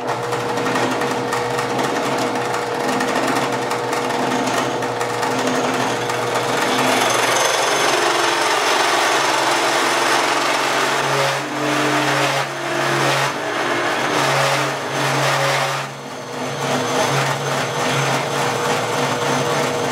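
Drill press running at speed, spinning a cast fiberglass-resin piston blank in a homemade PVC collet, while a chisel clamped in a drill press vise scrapes against the blank to turn it down. The machine drone holds a steady tone, and its lower tones waver from about halfway through as the cut goes on.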